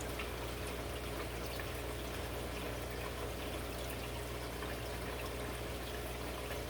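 Aquarium water trickling and splashing steadily, as from a filter's outflow, over a steady low hum, with faint scattered ticks.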